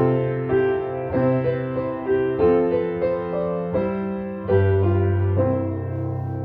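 Solo piano playing a slow, gentle melody, notes struck about twice a second. A low chord comes in about two-thirds of the way through and is held, fading.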